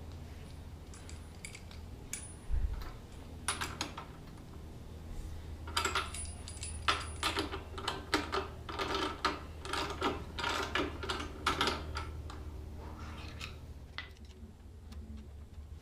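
Hand tools and metal parts clicking and clinking in quick, irregular clusters, busiest in the middle, over a steady low hum, during work on a motorcycle front wheel.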